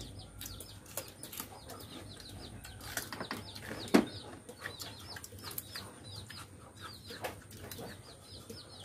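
Small birds chirping in quick, repeated high notes, over scattered light clicks of chopsticks and bowls; one sharp knock about four seconds in is the loudest sound.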